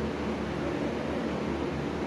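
A steady low mechanical hum with a hiss, unchanging throughout.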